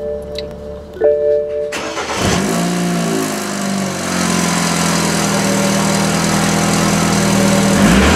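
A seatbelt warning chime sounds about a second in; then the 2013 BMW 528i's 2.0-litre twin-turbo four-cylinder starts, its revs flare and fall back over a couple of seconds, and it settles into a steady idle, heard at its twin exhaust tips.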